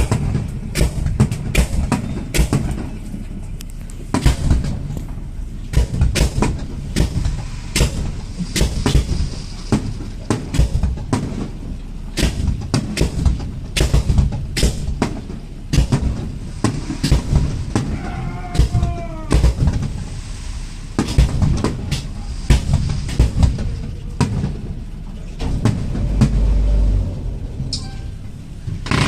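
Fireworks going off: a fast, irregular run of bangs and cracks, with a short whistle about two-thirds of the way through.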